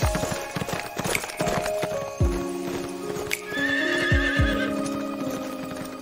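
A horse galloping, its hooves clip-clopping, with a quavering whinny a little past the middle, over orchestral background music with deep drum beats.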